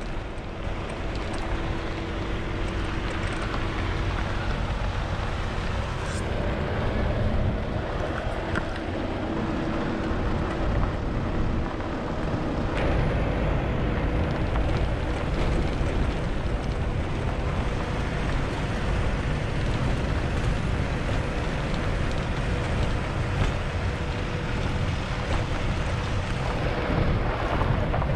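Motorhome driving on a rough, badly broken gravel track, heard from a camera mounted on its outside: steady wind rush on the microphone over a heavy rumble of tyres and running gear, with a faint steady hum.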